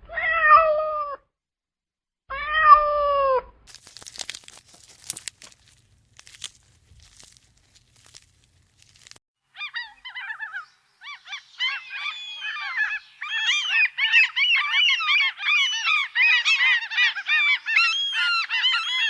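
A cat meowing twice, two drawn-out falling calls. Faint rustling and clicks follow, then from about ten seconds in a flock of birds calls densely, many short cries overlapping.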